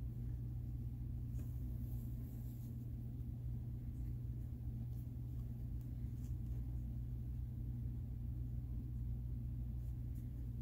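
A steady low hum, with faint soft ticks now and then from a crochet hook and yarn being worked through holes in a foam bra cup.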